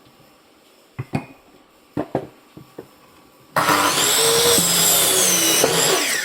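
A few knocks, then about three and a half seconds in an electric saw starts abruptly and cuts through firewood, its motor pitch wavering under load, and winds down at the end.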